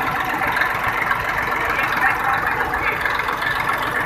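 Massey Ferguson tractor's diesel engine idling steadily close by, a fast even chugging.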